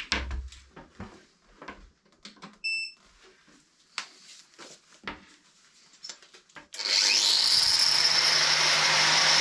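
Scattered clicks and knocks of an angle grinder being handled, with a short electronic beep about three seconds in. Nearly seven seconds in, the grinder, fitted with a flap disc, switches on for a test run: a quick rising whine as it spins up, then a loud, steady high whine running free with no load.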